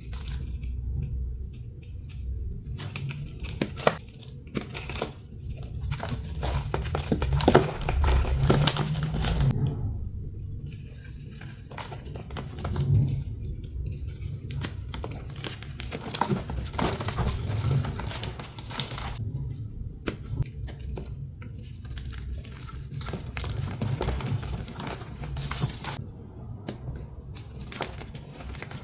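Dyed, pasted gym chalk blocks being crushed and crumbled: an irregular run of dry crunches and crackles, with a few brief pauses.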